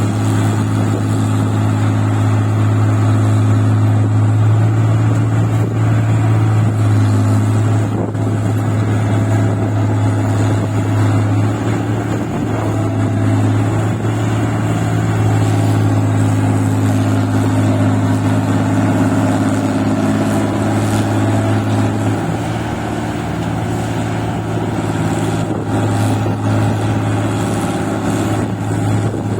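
Rice harvesting machine's engine running steadily under load, a constant low drone with small shifts in its upper tones.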